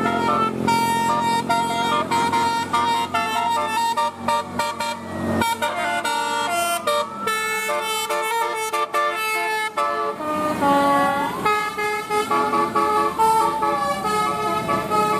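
Bus telolet horns, multi-trumpet air horns, tooting quick melodic phrases of several notes at once. In the last few seconds they give sliding tones that rise and fall like a siren.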